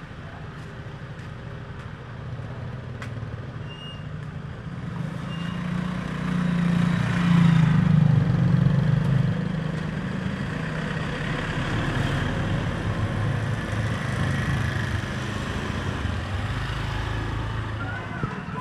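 Motor vehicle engine running close by, growing louder to a peak around eight seconds in, then settling to a steady lower hum.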